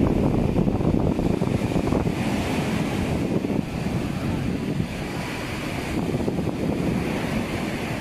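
Choppy sea surf breaking and washing up on a sandy beach, with wind rumbling on the microphone. A steady wash that dips slightly midway.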